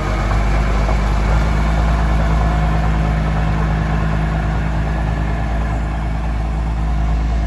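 Small narrow-gauge diesel locomotive's engine running with a steady low hum as the loco moves slowly along the track.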